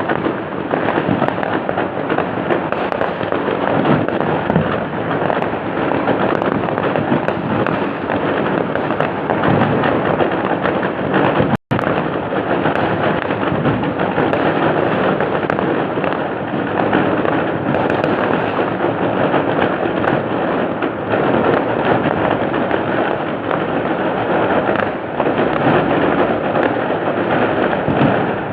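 Dense, continuous fireworks: overlapping bangs and crackling with no let-up, recorded on an old mobile phone so the sound is dull and cut off at the top. The audio drops out for an instant about twelve seconds in.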